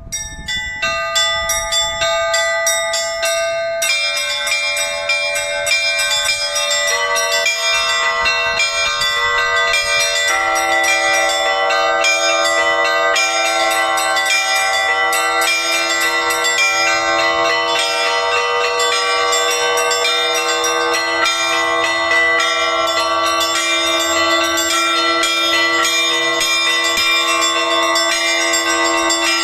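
Easter peal on a set of Orthodox church bells: quick repeated strikes on the small high bells. Lower, larger bells join about 4, 7 and 10 seconds in, building into dense, continuous layered ringing with long-sustained tones.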